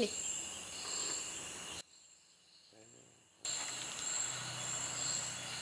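Night insects chirping in steady high-pitched trills, broken by a gap of near silence lasting about a second and a half, about two seconds in. A faint low hum joins near the end.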